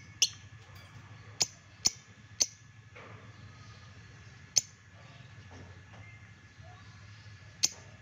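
Lovebirds giving six short, sharp, high-pitched chirps at irregular intervals, four of them within the first two and a half seconds.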